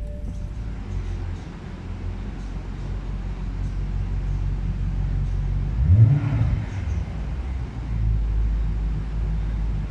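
BMW 645Ci's 4.4-litre V8 through a Supersprint exhaust, idling just after start-up with a deep, steady burble. About six seconds in it is blipped once, the pitch rising quickly and dropping back to idle.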